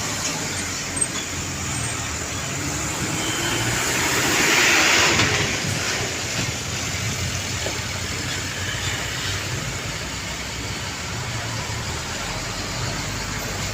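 Road traffic going by: vehicle engines running steadily. The sound swells to its loudest about four to five seconds in, with a rush of noise as one vehicle passes close, then settles back.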